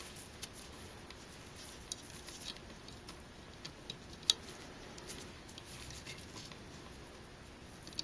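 Quiet handling of a 140 mm fan and its wire mounting clips against a CPU heatsink: scattered small clicks and faint rustling, with one sharper click about four seconds in.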